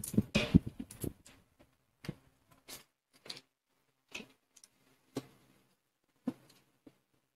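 Eating sounds of instant noodles: a short burst of slurping and mouth noise in the first second, then scattered soft clicks, roughly one a second, of metal spoons and forks against plastic bowls and of chewing.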